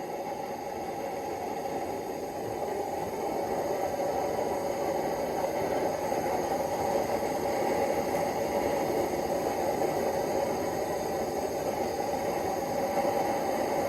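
Forge burning with a steady rushing noise that grows slightly louder over the first few seconds.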